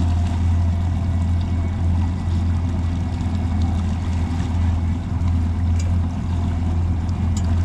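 Outboard engine of a Pursuit C 238 center-console boat running steadily underway, a low, even drone with water and wind rush from the moving hull.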